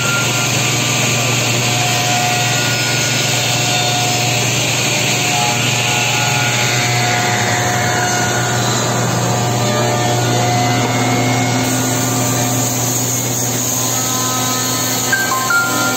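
Four-spindle CNC wood machining centre running, its spindles and cutters whining steadily over a dense mechanical noise. A whine falls in pitch about halfway through, and a few short stepped tones sound near the end.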